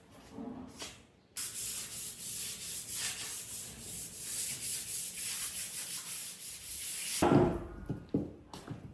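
Wood being sanded: a steady scratchy rubbing with an uneven pulse, followed by a few louder knocks near the end.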